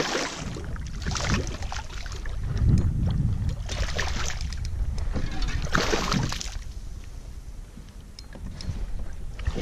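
A hooked redfish thrashing and splashing at the surface beside a kayak, in about four sharp bursts of splashing over the first six seconds, over a steady low rumble.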